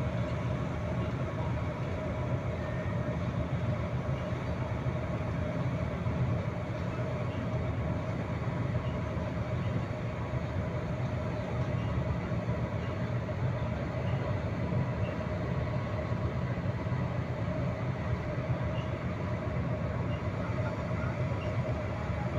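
Steady low drone of a heavy-lift ship's cargo crane machinery running during a lift, with a faint steady whine above it.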